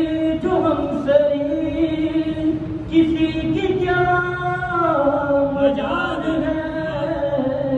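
A man singing a naat, an Urdu devotional poem in praise of the Prophet, unaccompanied and amplified through a headset microphone, in long drawn-out melodic lines that glide between notes.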